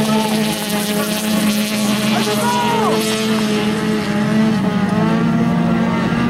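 Several race car engines running hard around a dirt field track, heard from beside the course as a steady drone of overlapping engine notes.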